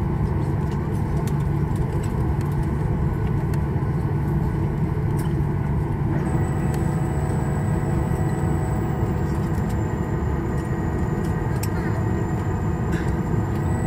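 Cabin noise of a Boeing 737-800 taxiing: the steady low rumble of its CFM56 engines at taxi power, heard from inside the cabin. About six seconds in, a thin high steady whine joins the rumble.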